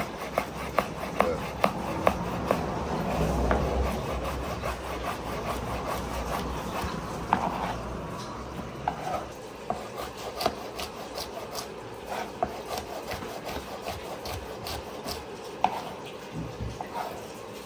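A cooking utensil stirring and scraping food in a pot, with irregular clicks and knocks against the pot.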